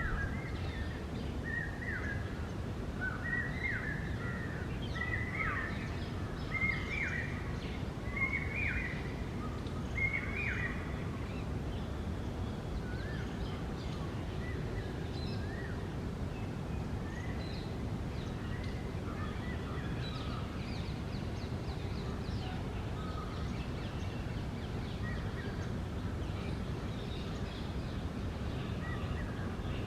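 Rose-ringed parakeets calling: a run of short, shrill calls in quick succession over the first ten seconds or so, then fainter, scattered calls, over a steady low rumble of background noise.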